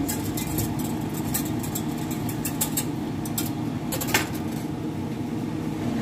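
Wooden spoon stirring rice and vegetables in broth in a metal pot, with scattered light clicks and scrapes against the pot and a sharper knock about four seconds in, over a steady low mechanical hum.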